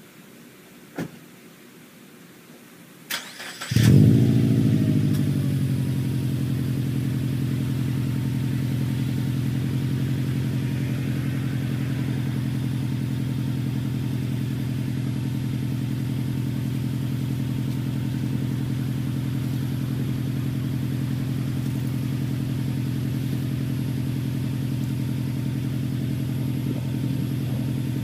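2010 Subaru WRX STI's turbocharged 2.5-litre flat-four is started with the stock unequal-length headers and a Kakimoto Regu 06R exhaust. After a click, the starter cranks briefly, the engine catches with a rev flare, then over a couple of seconds it settles into a steady idle.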